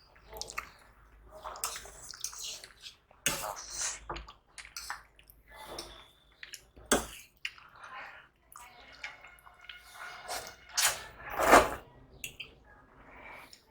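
Close-miked eating: wet chewing and slurping mouth sounds, with scattered small clicks. The loudest is a longer wet burst near the end.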